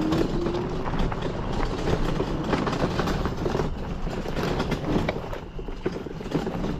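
Vehicle driving over a rough dirt track, its engine running under a constant clatter of rattles and knocks from the body and load bouncing.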